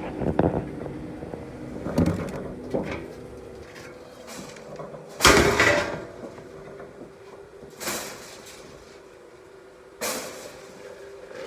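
Intermittent clatter and scraping as horse feed is scooped and handled, a series of separate knocks with the loudest clatter about five seconds in.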